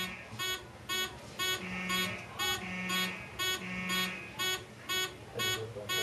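School fire alarm horn sounding in short buzzing blasts, about two a second, signalling an evacuation during a fire drill.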